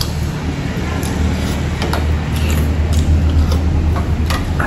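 Spoons and forks clicking and scraping against ceramic bowls and plates during eating, a few sharp clinks a second apart, over a steady low hum.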